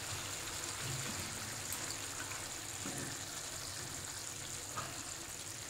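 Cabbage manchurian gravy sizzling faintly in the hot pan just after the gas is turned off: a steady hiss that eases slightly, with a small tap near the end.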